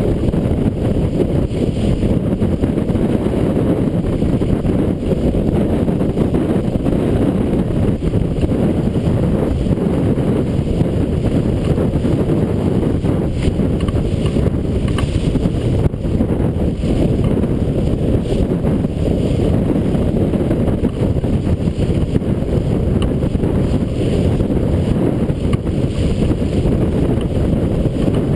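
Strong wind buffeting the microphone on a sailboat under sail, a steady low rumble, with water rushing past the hull as the boat drives through the chop.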